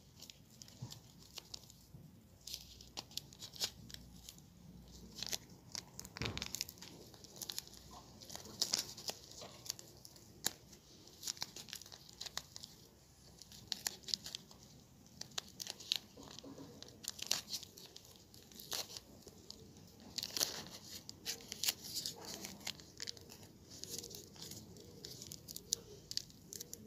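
Wrapping paper and flower stems being handled, rustling and crinkling in many short, irregular crackles as a bouquet is wrapped by hand.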